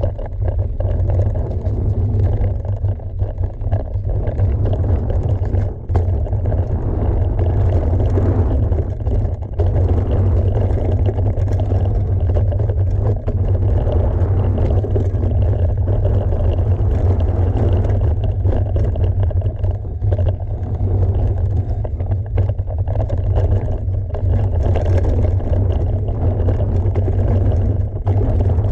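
Wind rumbling on the microphone of a camera riding with a mountain bike at speed downhill, mixed with tyre noise on the dirt trail and scattered knocks and rattles from the bike over bumps.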